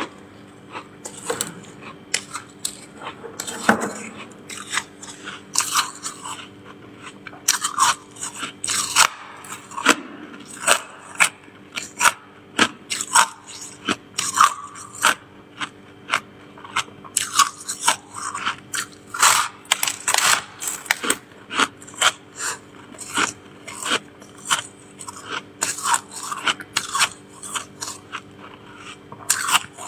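Freezer frost being bitten and chewed: a run of sharp, irregular crunches, one or two a second, over a steady low hum.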